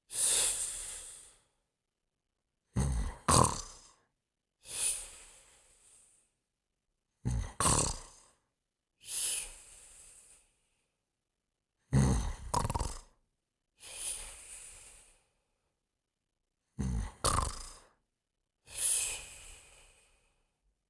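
Snoring in a slow, regular cycle about every five seconds: a rough two-part snore on each in-breath, then a long hissing out-breath that fades away, with dead silence in between.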